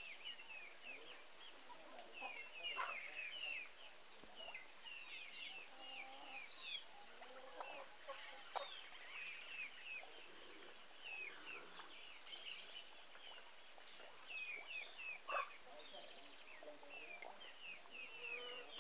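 Many small birds chirping busily and continuously, in quick short chirps, with a few brief sharp clicks in between.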